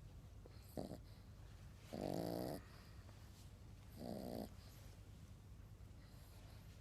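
A sleeping pet snoring: a short faint snore about a second in, then two louder half-second snores about two seconds apart.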